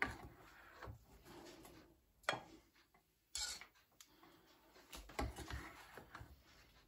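A ladle knocking and scraping against a pan and a ceramic soup bowl as soup is served, a few separate light clinks and scrapes.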